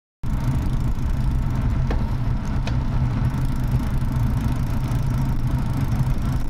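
Engine of the vehicle carrying the drive recorder running steadily as it drives, with road noise, picked up on board. The sound cuts in abruptly just after the start, and two faint ticks come about two and two and a half seconds in.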